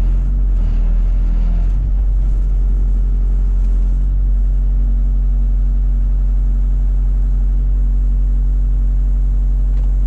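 Excavator engine running steadily at a constant speed, a low, even hum.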